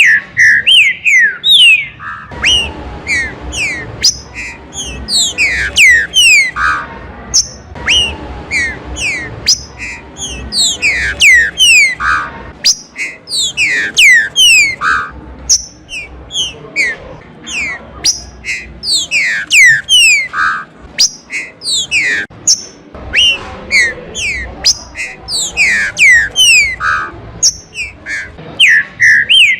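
Green-winged saltator (trinca-ferro) singing: phrase after phrase of quick, loud whistled notes that slide down in pitch.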